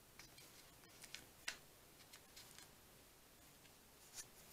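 Near silence, broken by a few faint ticks and rustles of fingers handling a fabric tab and paper on a journal page. The clearest tick comes about a second and a half in, another near the end.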